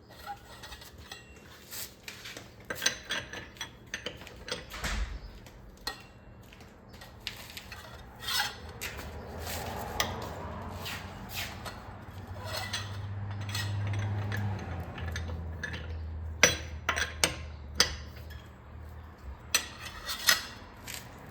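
Metal tools clinking and clicking as a socket wrench with a pipe slipped over its handle is fitted and worked on a car wheel's lug nuts to loosen them. The clinks are irregular, and a low hum swells up and fades through the middle.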